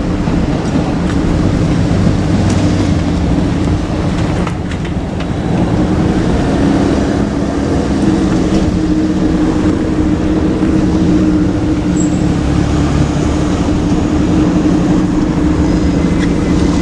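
Steady, loud vehicle noise: a low hum with an even rush over it, unbroken throughout.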